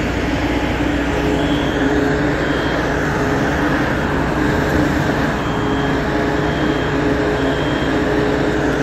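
Steady street traffic noise with a strong low rumble, cars driving past, and faint short tones that come and go.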